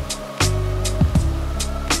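Background music with a steady beat: a kick drum, snare and hi-hat strikes over a sustained bass line.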